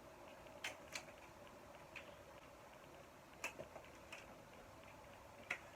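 Near-silent room tone with about six faint, sharp clicks at irregular intervals.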